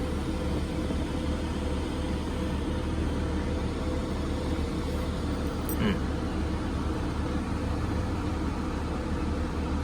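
Steady low mechanical hum, even throughout, with one brief faint click about six seconds in.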